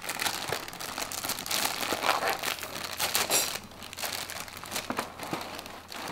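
Cardboard cereal box being opened and its plastic inner bag pulled apart, crinkling and crackling irregularly with a few sharp tearing rustles.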